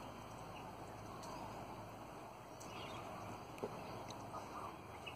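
Twenty-eight parrots (Australian ringnecks) chattering softly and faintly while feeding, with a few sharp clicks, the loudest about three and a half seconds in.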